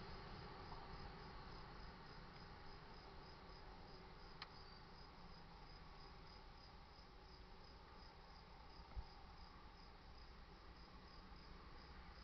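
Crickets chirping faintly in a steady, high pulse about three times a second over quiet outdoor hiss, with one sharp click about four seconds in and a low thump near nine seconds.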